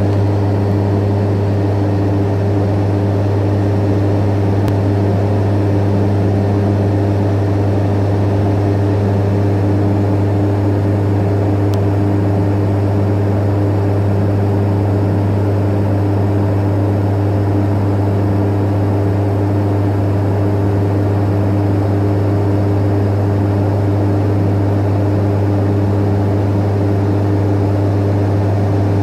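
Cockpit drone of a Beechcraft Super King Air 350's twin Pratt & Whitney PT6A turboprops during descent: a loud, steady low propeller hum with airflow rush, unchanging throughout.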